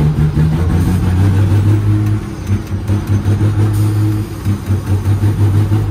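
Straight-piped Cummins ISX diesel engine of a heavy truck, heard from inside the cab while driving. Its low, loud note drops in pitch about a second in, and in the second half the loudness rises and falls unevenly.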